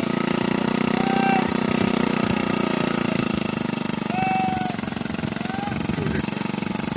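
Engine of a homebuilt ultralight helicopter running steadily at one speed, driving the main rotor on a ground test run.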